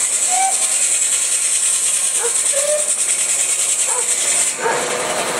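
Large circular saw blade, driven by a steam traction engine, cutting through a log with a steady high-pitched whine that stops about four and a half seconds in as the cut ends, leaving the saw running free.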